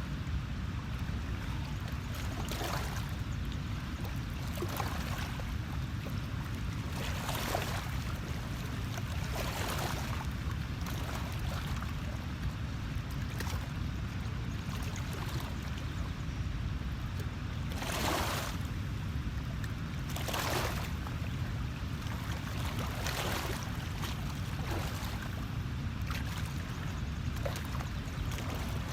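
Water splashing or lapping in short washes every few seconds, over a steady low rumble.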